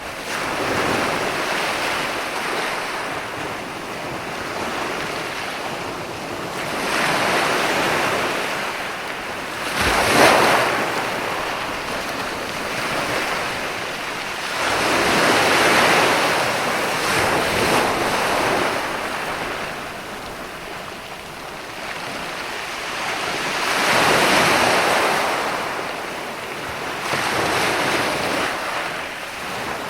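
Ocean surf: waves breaking and washing in, swelling and ebbing every several seconds, with one sharper crash about ten seconds in.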